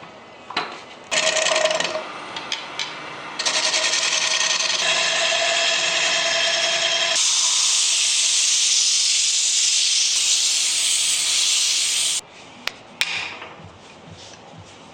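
Wood being abraded with a power tool, a sander or grinder working the surface: a short pass, then a long, steady pass that stops abruptly, followed by a few clicks.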